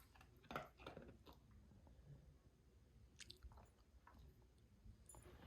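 Faint crunching and chewing of a dog eating dry kibble picked out of a snuffle mat, in scattered bites with quiet gaps between.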